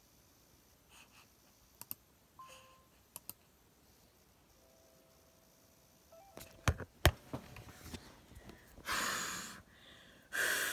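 A few faint clicks and two sharp knocks, then two loud breathy exhalations close to the microphone near the end.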